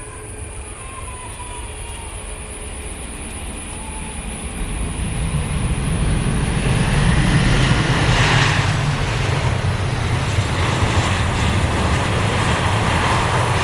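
Aircraft engine noise that starts faint and grows steadily louder over the first half, then stays loud with a deep rumble as the aircraft passes close.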